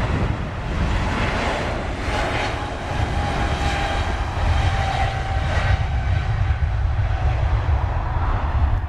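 Boeing 777-300ER's two GE90-115B turbofans at takeoff thrust as the airliner rolls down the runway past the listener: a steady, deep rumble with a faint whine that slowly drops in pitch.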